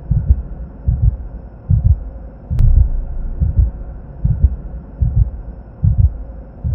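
Heartbeat sound effect in a horror film score: a steady double thump, lub-dub, just over once a second, over a faint low drone, with one sharp click about two and a half seconds in.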